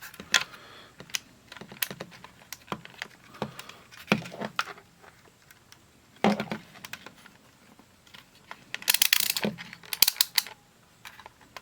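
Irregular clicks and taps of hands handling a handheld digital multimeter and its test leads, with a longer scraping rustle about nine seconds in.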